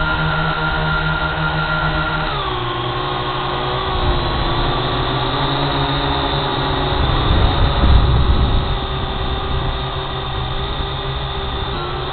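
Quadcopter drone's propellers whining steadily, their pitch dropping about two seconds in as the motors slow, then holding. A low rumble swells up around eight seconds in.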